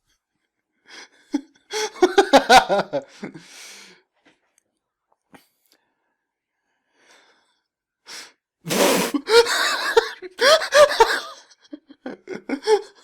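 Animated characters' voices in short, emotional outbursts with gasps and breathy exclamations, in two spells; the second opens about nine seconds in with a sharp, breathy cry.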